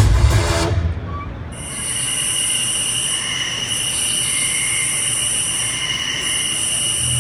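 A few last drum hits of the music, then, about a second and a half in, a shrill, steady high-pitched whine with hiss takes over, briefly dipping twice, played through the hall's speakers as part of the presentation soundtrack.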